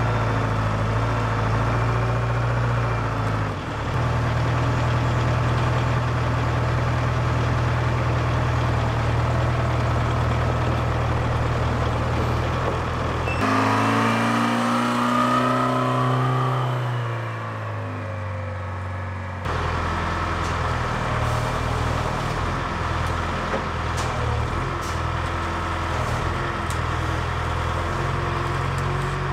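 Engine of a large US Army rough-terrain forklift running under work, steady and low. In the middle it revs up and back down for several seconds.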